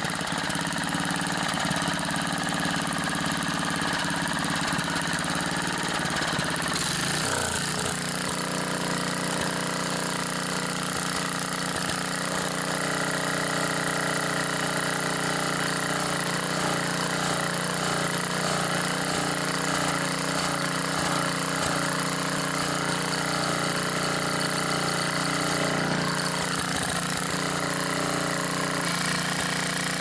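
Tecumseh 3.5 hp single-cylinder four-stroke small engine running steadily on an edger, its slow-speed mixture screw just set.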